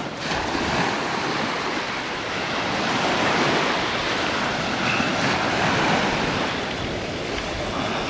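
Sea surf washing onto a beach, with wind rushing over the microphone: a steady rushing noise that swells and eases slightly.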